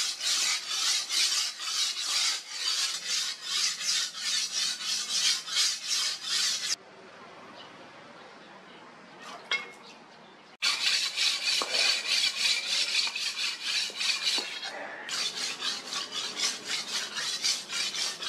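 Steel katana blade stroked rapidly back and forth on a wet whetstone, a steady rhythmic scraping of about three strokes a second. It stops for a few seconds just before the middle, then starts again.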